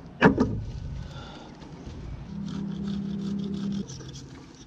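A knife working a palm frond stalk: fibres tear with a sharp snap just after the start, then quick scraping shaving strokes toward the end. A steady low hum of unclear source runs for about a second and a half in the middle.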